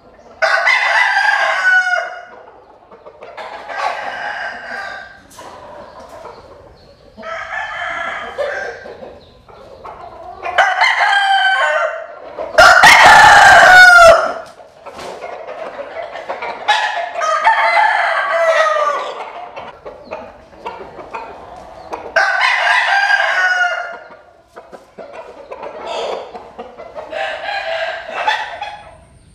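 American Sil (Asil) gamecock roosters crowing again and again, about eight crows, some louder than others. The loudest crow comes a little before halfway through.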